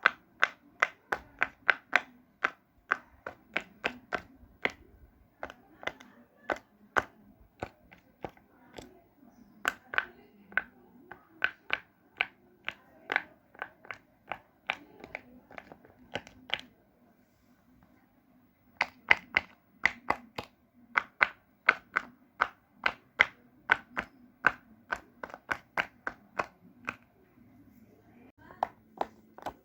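Fidget toy being worked in quick succession, giving a steady run of sharp clicks at about three a second, with a pause of about two seconds past the middle before the clicking resumes.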